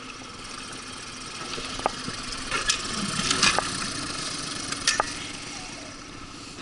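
Small propeller-driven outboard motor on an inflatable boat running steadily under way, a constant hum over the hiss of water and air rushing past. A few sharp clicks or knocks come through the middle.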